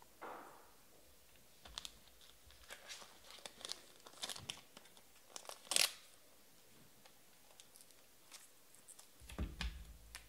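Hands handling trading-card packaging: a run of scattered crinkles and clicks, the loudest a little past the middle, then a low thump near the end.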